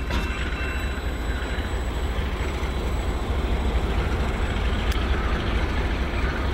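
GE B23-7 diesel locomotive and a single covered hopper car rolling by and away: a steady rumble of engine and wheels on rail, heaviest in the low end.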